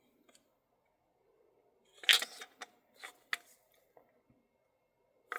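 Parts of a gas-blowback airsoft rifle being handled: a few sharp clicks and clacks, the loudest about two seconds in, more around three seconds and one near the end.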